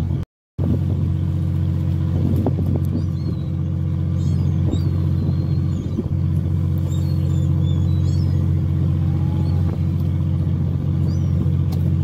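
Fishing boat's engine running steadily, a constant low drone. Faint short high gull calls come through a few times, and the sound drops out for a moment just after the start.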